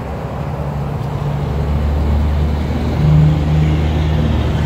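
Motor vehicle engine running, a steady low hum that grows a little louder about three seconds in.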